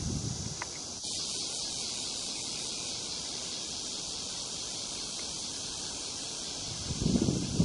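Steady high hiss of outdoor background ambience, with loud, irregular rustling starting near the end.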